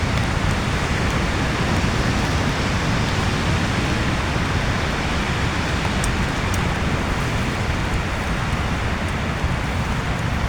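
Heavy rain pouring steadily on a tent, a dense, even hiss with a few faint ticks of drops about six seconds in.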